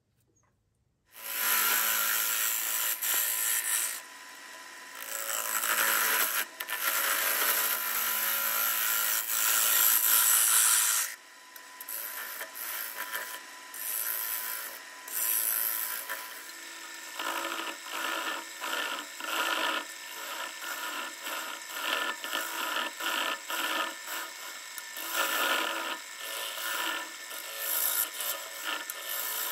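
Wood lathe running while a tool works a spinning live edge maple bowl. A loud, harsh scraping in long passes starts about a second in. After about ten seconds it gives way to quieter, shorter contacts that repeat about once a second.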